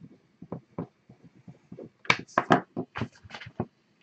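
A quick run of light knocks and clatters from small objects being handled on a desk. They get louder and sharper from about halfway through, then stop shortly before the end.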